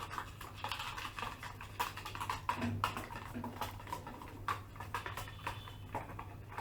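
A whisk or spoon clicking and scraping against a mixing bowl in quick, irregular taps as flour is mixed into crepe batter.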